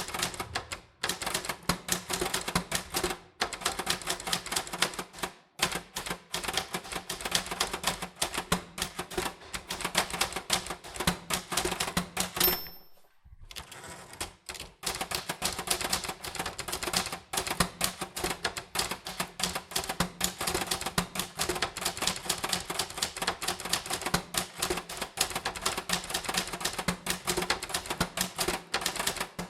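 Typewriter keys striking rapidly and unevenly, a steady stream of sharp clacks. About halfway through, a short high ding sounds and the typing pauses for about a second before going on.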